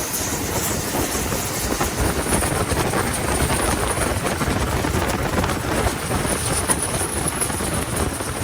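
Engine of a Thai longtail riverboat running steadily at high revs, a dense unbroken mechanical noise.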